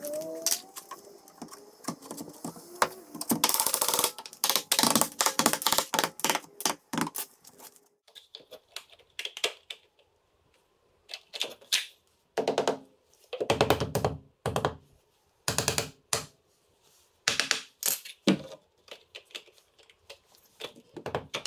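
A caulking gun clicking rapidly as silicone is squeezed out along the sill, then several heavier thunks as a metal door threshold is set down and pressed into place over the silicone.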